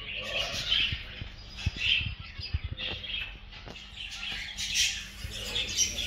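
Many small cage birds chirping and squawking together, short calls overlapping one after another. A few soft knocks come in around the middle.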